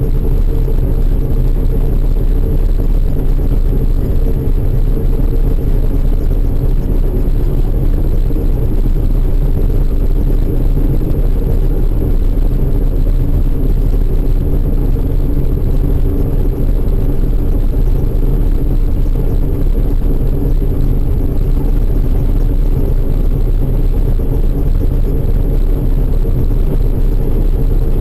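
Large farm machine's diesel engine running steadily at working speed, a constant low drone.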